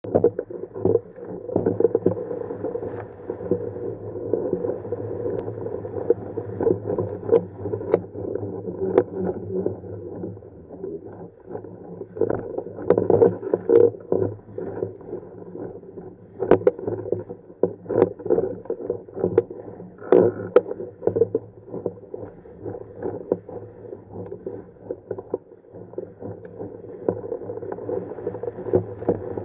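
Water rushing along the hull of a Tiwal 3 inflatable sailing dinghy under way at about 5 to 7 knots, muffled, with frequent sharp slaps and knocks as chop strikes the boat.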